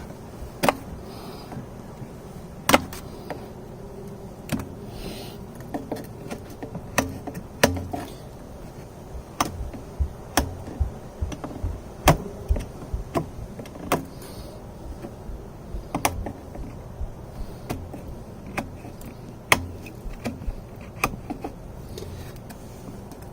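Irregular sharp clicks and knocks from hand work on PVC pool plumbing fittings, a few every couple of seconds and some much louder than the rest, over a steady low hum.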